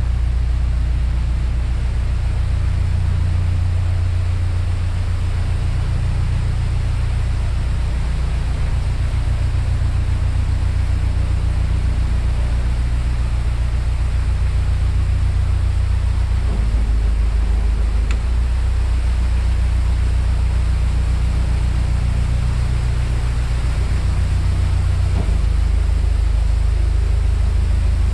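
Canal boat engine running steadily under way, its low note shifting slightly a few times.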